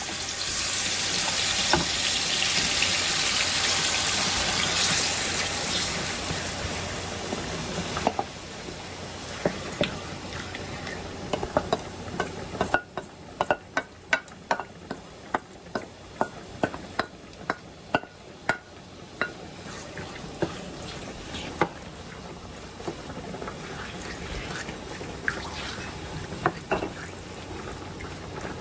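Marinated chicken sizzling in hot oil in a frying pan on high heat: a loud sizzle for the first several seconds that then settles to a softer fry, with many short sharp clicks and taps over it.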